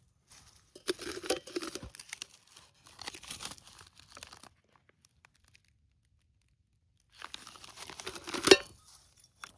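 Gear being rummaged through in a pack: rustling and crinkling of packed items and wrappers, in two spells with a quiet pause between them. The second spell ends in one sharp knock.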